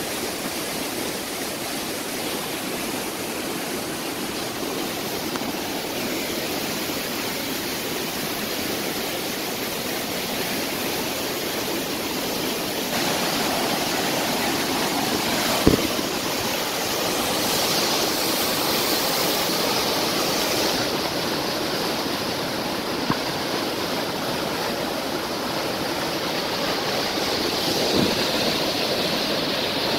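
Muddy floodwater rushing and churning through a rain-swollen channel after heavy rain, a steady noise of white water. A single sharp knock comes about halfway through, and fainter ones come later.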